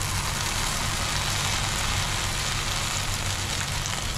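Medu vadas (urad dal batter fritters) deep-frying in hot oil in a kadai: a steady, even sizzle of bubbling oil.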